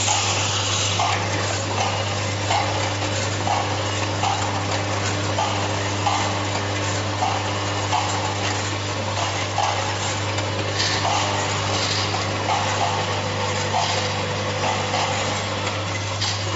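Vibratory tablet counting machine running: a steady low hum from its vibrating feeder trays under a constant hiss of tablets moving along the steel channels, with a soft pulse repeating about once a second.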